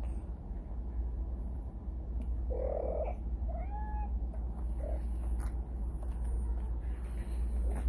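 A domestic cat giving a few short meows in the middle of the stretch, over a steady low hum.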